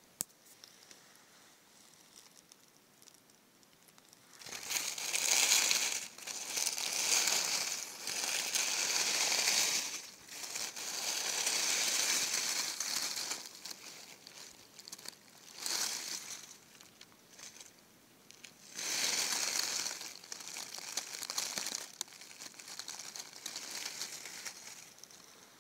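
A sharp click at the start, then dry leaf litter rustling and crackling in several irregular bursts of one to a few seconds as it is disturbed.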